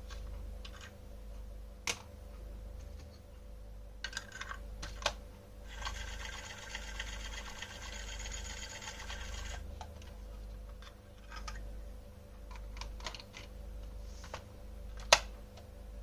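Plastic toy pieces being handled: scattered light clicks and taps, a few seconds of dense scratchy rasping in the middle, and one sharp, loud click near the end, over a steady low hum.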